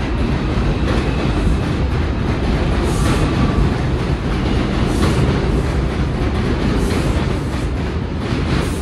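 Subway train running on the rails: a loud, steady rumble with a sharper clack about every two seconds.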